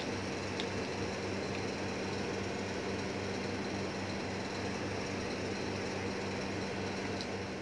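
Oil sizzling steadily in a frying pan around banana fritters, with a few faint pops and a low steady hum underneath.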